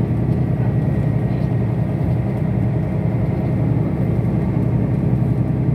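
Steady low rumble of an airport apron shuttle bus driving, its engine and running gear heard from inside the cabin.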